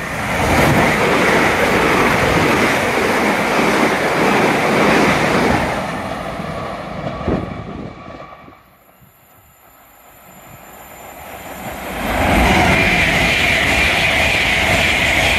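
A GWR Class 387 electric multiple unit runs through at speed without stopping, a loud rush of wheel and air noise that fades away over the first several seconds. After a lull, a GWR Hitachi Intercity Express Train comes in and rushes past at speed, with a steady high whine over the rumble.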